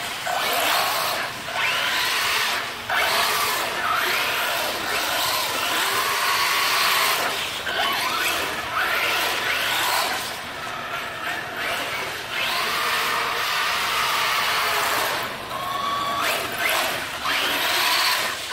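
Electric motors of Traxxas Slash 4x4 RC trucks whining, rising in pitch again and again every second or two as the trucks accelerate and drift, over the hiss of tyres sliding on concrete.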